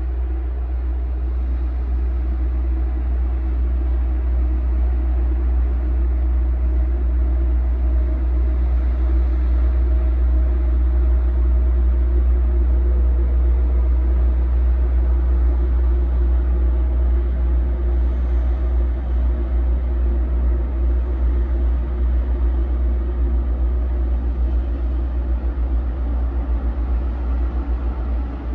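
Tanker ship's engines giving a low, steady rumble as the vessel passes, with a faint hum above it. The rumble swells slightly towards the middle and eases a little near the end.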